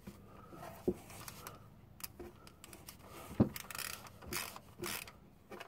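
Hand ratchet with a 13 mm socket turning the power steering belt adjuster bolt on a BMW E30's engine, its pawl clicking and rasping in short spells, with a couple of sharp metal knocks of the tool.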